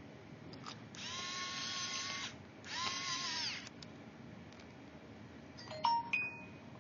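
Small electric screwdriver spinning in two runs of about a second each, driving the heatsink screws back into the laptop, its pitch sagging as each run stops. A couple of sharp clicks follow near the end.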